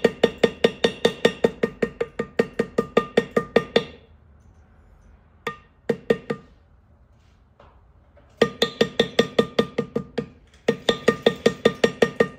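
Leather-tooling shader being struck with a mallet in fast runs of taps, about five or six a second, each tap ringing briefly. A first run lasts about four seconds, a couple of single taps follow, and another run comes near the end. This is hand shading of tooled leather.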